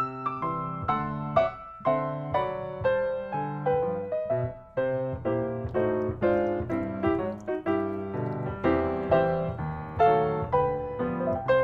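Background piano music: a light melody of struck notes over a steady lower accompaniment.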